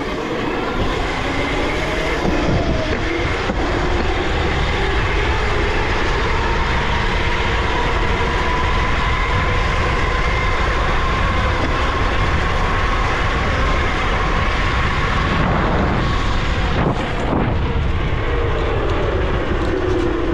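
Electric motor whine of a 72-volt Razor electric dirt bike under way, its pitch rising and easing with speed and dropping near the end, over a constant rush of wind and tyre noise.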